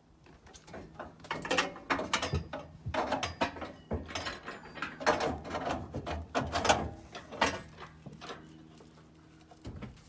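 Irregular metallic clanks, knocks and rattles as a V8 engine hanging from a hoist is shifted and tucked into a car's engine bay to line up its engine mount. A faint steady hum runs underneath, and the knocking dies down near the end.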